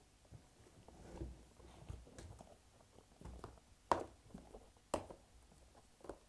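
Faint handling noises as modelling clay is pressed into a plastic toy mold, with two sharp plastic clicks about a second apart just past the middle.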